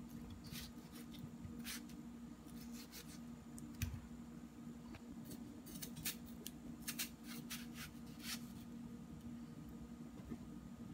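Kitchen knife cutting a ripe melon, slicing flesh from the rind and cutting it into cubes: a scatter of short, crisp cuts and scrapes. A faint steady low hum runs underneath.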